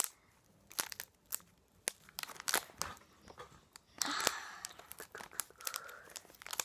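Foil booster-pack wrapper being handled and torn open: scattered crinkles and crackles, then a longer tear about four seconds in.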